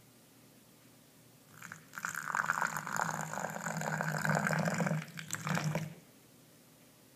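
A thin stream of water pouring into a can of instant snow powder. It starts about a second and a half in, breaks briefly near five seconds, and stops about six seconds in.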